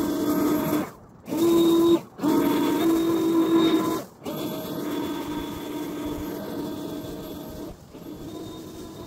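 Battery-powered handheld leaf blower running with a steady whine, cutting out and restarting three times in the first four seconds, then growing fainter as it moves away.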